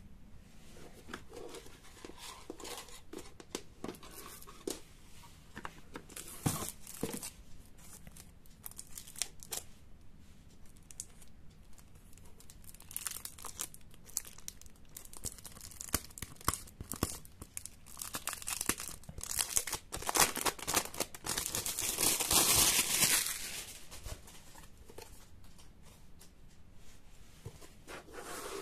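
Plastic packaging being crinkled and torn by hand as the parts of a card model kit are unwrapped: irregular crackles and rustles, with a longer, louder stretch of rustling and tearing about twenty seconds in.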